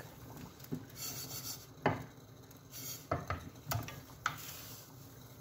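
Millet being stirred into boiling water in a glass pot: a rasping scrape with about five sharp knocks of the spoon against the pot, the loudest about two seconds in.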